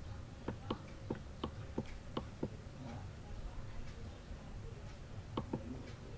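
Computer mouse clicking: a quick run of about seven clicks in the first two and a half seconds, then two more near the end.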